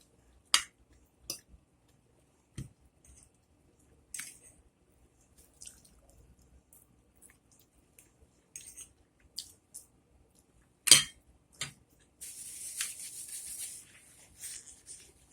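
Close-miked eating sounds: scattered small mouth and utensil clicks and taps, one sharp louder click about eleven seconds in, then about two seconds of soft hissing noise.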